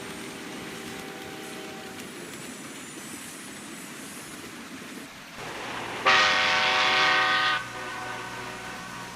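Diesel train horn sounding: one loud multi-note chord blast of about a second and a half, starting about six seconds in. Before it, a quieter steady horn tone cuts off about two seconds in, over a low running hum.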